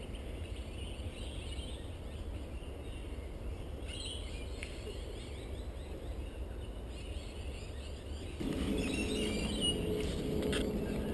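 Outdoor bush ambience: scattered short bird chirps over a low steady rumble. About eight seconds in the sound gets louder and a steady low hum joins, with more bird chirps over it.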